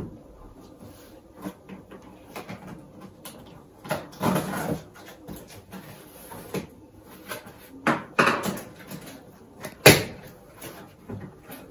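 Cardboard box being opened by hand: the cardboard flaps scrape and rustle in a few longer stretches, with a sharp knock near the end.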